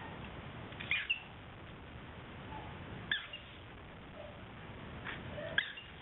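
Cockatiel giving short chirps, three times, a couple of seconds apart.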